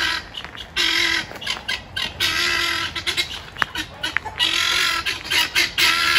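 Penned geese honking in alarm, a series of loud, harsh calls repeated every second or two, warning off a dog at the fence; the speaker calls them very upset.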